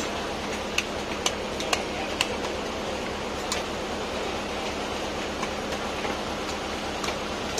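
Steady fish-market background noise with a few sharp clicks or knocks: four in a row about half a second apart in the first two and a half seconds, then two single ones, the last near the end.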